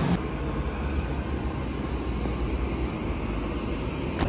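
Steady low rumble of a vehicle in motion, with a faint even hiss above it.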